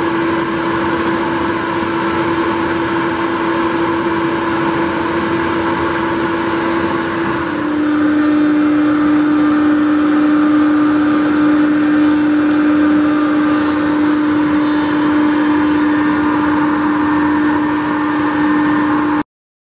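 CNC router spindle running steadily as its bit carves a 3D relief into Precision Board Plus high-density urethane foam. It makes a steady tone over a rushing noise. The pitch drops slightly about seven seconds in, and the sound cuts off suddenly near the end.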